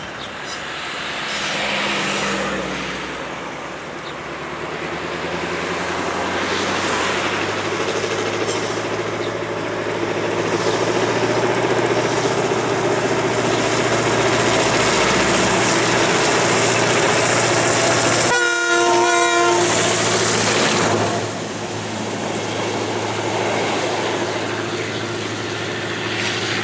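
Class 661 diesel-electric locomotive (an EMD G16 with a 16-cylinder two-stroke engine) pulling a passenger train away from the station, its engine note building as it comes closer and passes. A little past the middle its horn sounds once, for about a second and a half.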